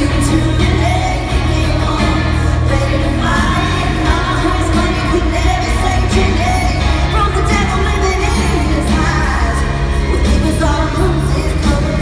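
Live country-pop concert: a woman singing over a full band through an arena sound system, heard from the audience stands with a steady, heavy bass.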